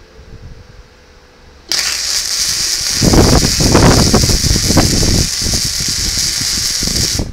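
MIG welding arc running on a metal plate. A steady hiss starts suddenly about two seconds in, turns into loud, dense crackling about a second later, and cuts off just before the end when the trigger is released.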